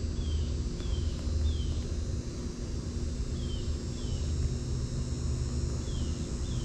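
Backyard ambience: a steady low rumble with a faint machine hum, a thin steady insect drone, and a bird giving short falling chirps, three in a row at the start, then two and two more later.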